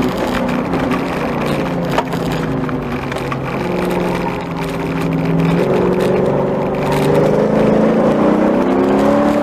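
New Edge Mustang's engine heard from inside the cabin during an autocross run, its pitch rising and falling with the throttle. There is a single sharp click about two seconds in.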